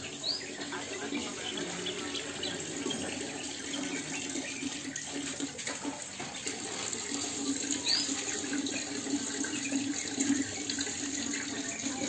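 Steady background noise like a running tap, with a faint short rising chirp twice.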